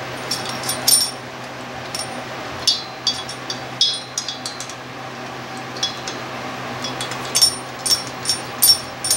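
Metal socket and extension clinking against head bolts as they are started by hand into a small engine's cylinder head. The sharp clinks come in scattered small clusters, louder near the end.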